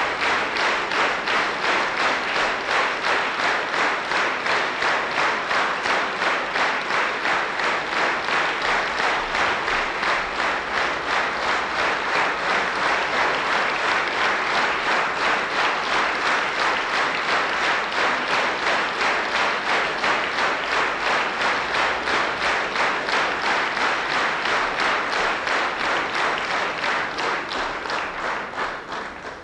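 Concert-hall audience clapping in unison, a fast, even beat of a few claps a second. The applause fades out near the end.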